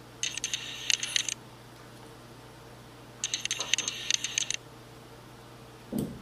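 Two short spells of high, ringing metal-on-metal scraping: a small file or pick worked along the apex seal groove of a Mazda 13B rotary engine's steel rotor to clean it out. A short low knock follows near the end.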